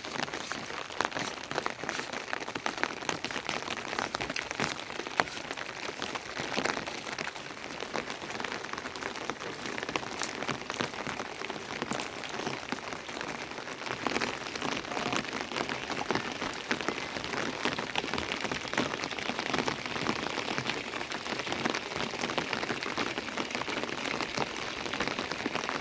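Heavy rain falling steadily: a dense hiss full of sharp ticks from individual drops hitting a hard surface close by.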